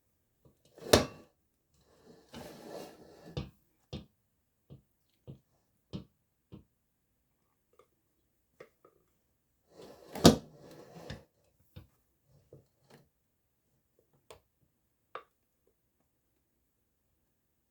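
Kitchen handling clatter: two loud sharp knocks about nine seconds apart, with scattered light clicks and brief scraping between them, from a heavy mixing bowl and utensils being moved about on the counter.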